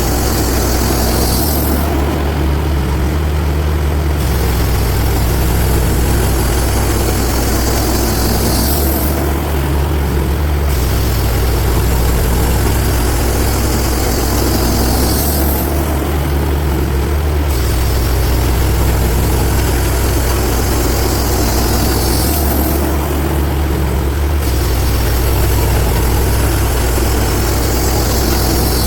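Engine of a TimberKing band sawmill running steadily while it saws a red oak log into boards. Every six or seven seconds the high hiss drops out for about two seconds, in a regular cycle of cutting passes.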